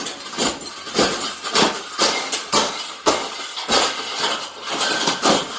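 A bird cage being bent and folded by hand: a run of sharp clattering knocks and crackles as its sides are forced in.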